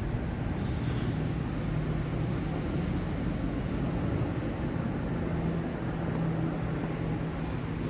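Steady low rumble of distant vehicle engine noise, with a faint hum and a few faint knocks.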